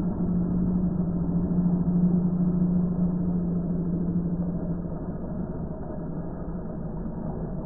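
Scooter engine held at high revs while the rear tyre spins on asphalt in a burnout; a steady low drone that eases off and grows quieter over the last few seconds.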